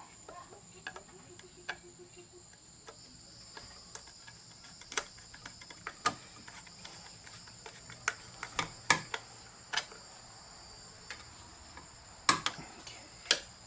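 Scattered sharp clicks and taps of a screwdriver and stripped wire ends against the terminal screws and metal cover of a generator outlet box being wired, about a dozen in all, the loudest a little past halfway and a pair near the end. A steady high-pitched insect trill runs underneath.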